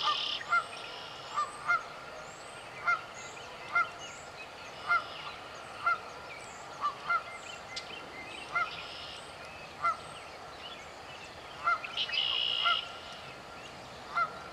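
Canada goose honking: a series of single, short honks, about one a second.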